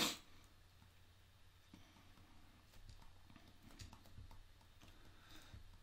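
Faint, scattered taps and light scratching of a stylus on a graphics tablet during handwriting, over quiet room tone.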